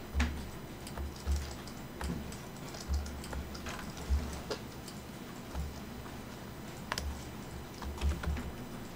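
Irregular clicking of a computer keyboard and mouse while operating modelling software, with a few soft low thuds among the clicks.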